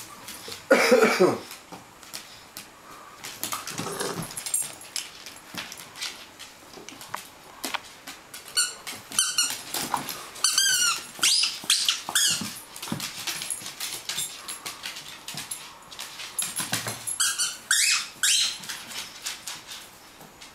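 Two dogs playing: a squeaky tennis ball squeaked over and over as a Staffordshire bull terrier bites on it, in runs about halfway through and again near the end, with a few short dog barks, the loudest about a second in.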